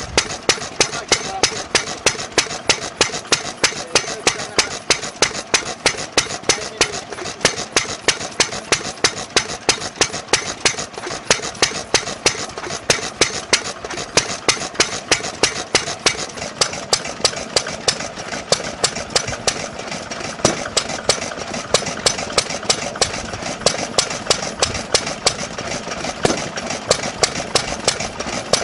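Kubota 3C single-cylinder stationary engine running steadily, with a regular, rapid train of sharp exhaust beats and mechanical clatter.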